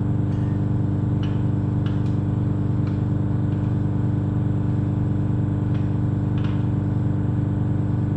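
Steady low mechanical hum, unchanging throughout, with a few faint light clicks and knocks as the disassembled engine is handled and rolled over.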